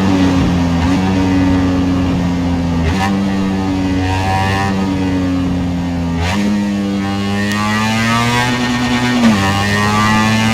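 Ducati Desmosedici D16RR's V4 engine running at steady cruising revs. The engine note holds for a few seconds at a time, then steps down or up, about three seconds in, six seconds in and again near nine seconds.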